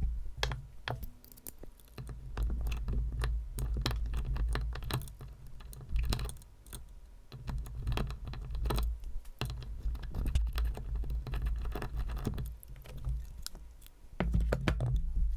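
Hand tools and small metal carburetor parts clicking, tapping and scraping in quick irregular bursts as screws are taken out of a Yamaha XJ750 carburetor, with a low rumble coming and going underneath.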